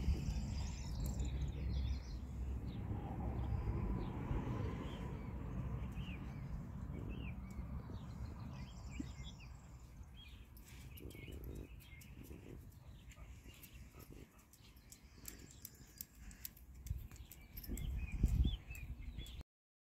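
Outdoor ambience: small birds chirping in the background over a low rumble, with scattered light clicks. The rumble is strongest at first, fades, and swells again briefly near the end.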